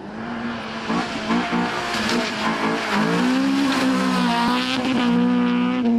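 Honda Civic VTi rally car's 1.6-litre VTEC four-cylinder engine revving hard under load, its pitch climbing and dropping with throttle and gear changes, with tyre squeal as it slides through a turn on tarmac.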